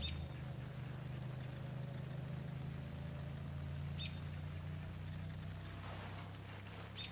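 A distant engine drones steadily and low, with a faint tone that slowly sinks in pitch. Three short, high chirps come a few seconds apart, at the start, about four seconds in and near the end.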